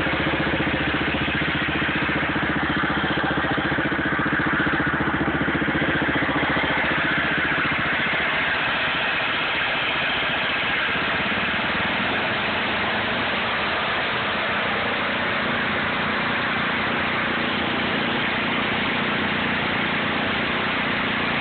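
Subaru small engine on a Sears garden tractor, running steadily close up.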